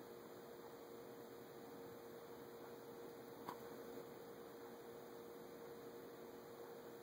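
Quiet steady electrical hum with a background hiss, and one faint click about three and a half seconds in.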